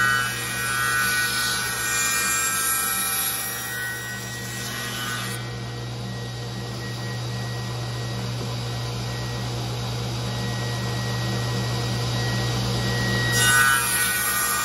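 Sliding table saw running, its blade cutting a castle-joint slot in the end of an upright board for about the first five seconds. Then the blade spins free while the board is turned, and the next cut starts near the end.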